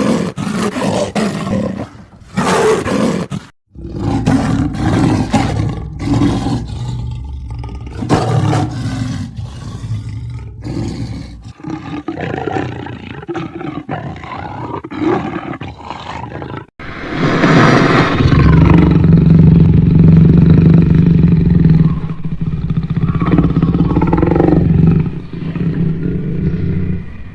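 Big cat roaring and growling: a run of short, separate growls, then a long, loud roar starting about two-thirds of the way through.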